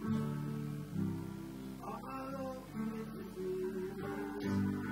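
Acoustic guitar strumming chords with a Roland FP-50 digital piano holding chords beneath, an instrumental stretch of a song; a new strum lands about every second at first and again near the end.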